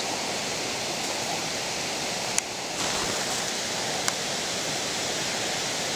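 Steady rushing noise with two brief clicks, the first about two and a half seconds in and the second about four seconds in.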